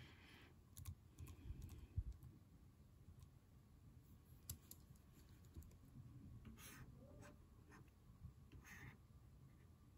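Near silence: faint, scattered clicks and taps of a computer mouse and keyboard over a low room hum, one sharper click about two seconds in.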